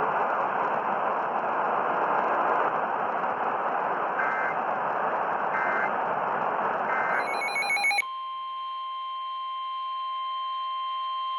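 Weather-radio static hiss broken by three short two-pitch data bursts about a second and a half apart, the SAME header of a new alert. About eight seconds in, the static cuts off and a steady alarm tone begins, typical of the NOAA Weather Radio 1050 Hz warning alarm that marks a new flash flood warning.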